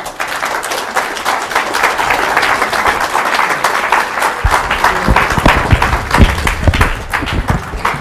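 Audience applauding: dense clapping that tapers off near the end. Several low thumps come in partway through the applause.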